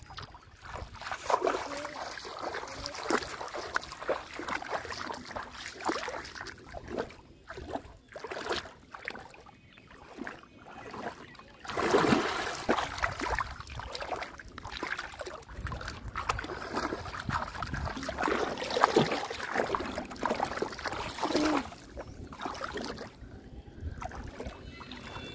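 Shallow muddy water splashing and sloshing as someone wades and grabs at fish by hand, in irregular bursts, with a big splash about twelve seconds in.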